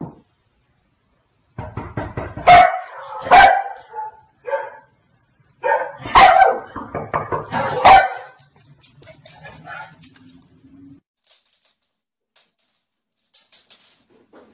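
A dog barking: several loud, sharp barks over about six seconds, a second or so apart, after a short silence at the start.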